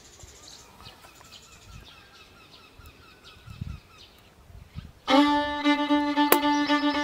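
Quiet ambience with faint, quickly repeated bird chirps, then fiddle-led background music starts abruptly about five seconds in and fills the rest.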